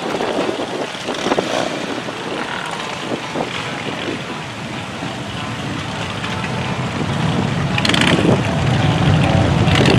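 Many motorcycle engines running together, getting louder and deeper over the last few seconds.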